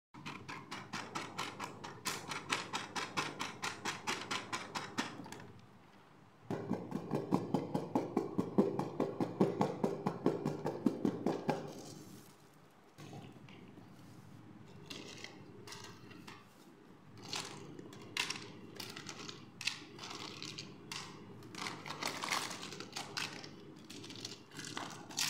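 Rapid, even fingernail tapping on the plastic packaging of a boxed doll, then a second, louder and faster run of tapping. After a short pause, quieter scattered clicks and rattles of small plastic doll accessories being handled in a cardboard box.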